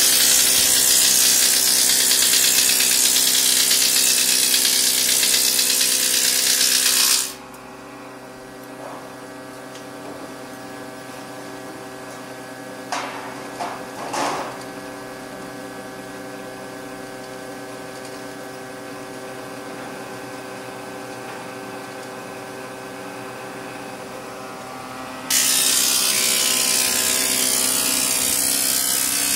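Hitachi A 1500A combination woodworking machine running, its motor and cutterhead giving a steady hum, with the loud hiss of a board being planed for about the first seven seconds and again from about four seconds before the end, when a board goes through the thicknesser. Between the cuts the machine runs idle, with a few short knocks around the middle.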